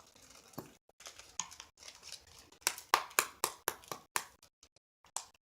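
A quick run of about seven sharp taps or clicks from objects being handled, a little over halfway through, with a few fainter ones around them.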